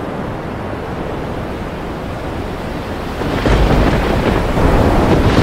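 Stormy sea: a steady rush of wind and waves that swells louder, with a deep rumble, about three and a half seconds in.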